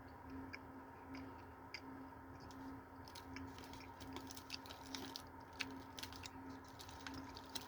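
Faint chewing of a glazed caramel apple hand pie, with scattered small mouth clicks and soft crunches of the glaze and crust.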